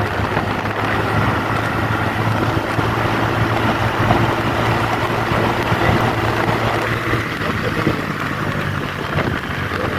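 TVS Ntorq scooter engine running steadily under way, with wind noise on the microphone.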